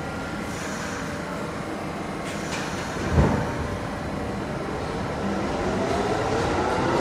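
R62A subway train pulling out of the station with a steady rumble. A single heavy thump comes about three seconds in, then a whine that rises in pitch as the train picks up speed.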